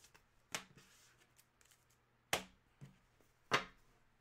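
Hands handling cards and a card box on a wooden desk: a few short, sharp taps and knocks, the loudest about three and a half seconds in, over a faint low hum.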